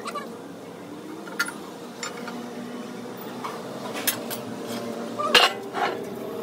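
Scattered metal clinks and knocks as a steel truck front axle beam and a perforated steel strip are shifted by hand on a steel press bed, the loudest knock about five seconds in, over a low steady hum.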